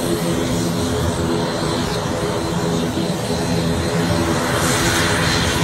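Twin turboprop engines of an ATR 72 airliner running as it rolls along the runway: a steady propeller drone with a rushing hiss that swells slightly near the end.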